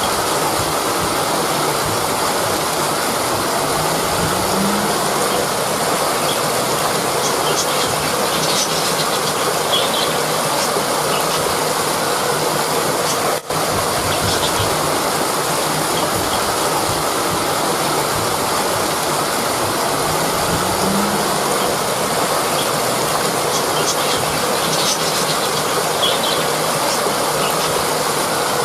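Rushing river water: a loud, steady rush of flowing water, briefly dropping out for a moment about halfway through.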